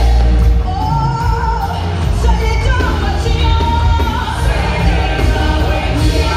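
Live gospel music: a women's vocal group singing sustained, held notes over a band with heavy bass, amplified through a PA.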